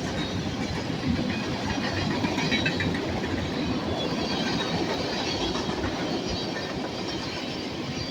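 A BNSF train rolling past at close range, its cars' wheels clattering on the rails in a steady rumble, with faint high wheel squeal coming and going.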